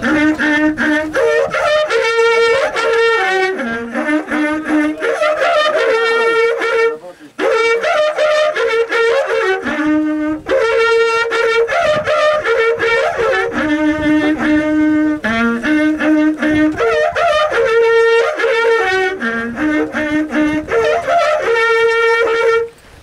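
Two long festival horns, natural trumpets, blown together in a repeated tune of long held notes on a few pitches. The playing breaks off briefly about seven seconds in and stops right at the end.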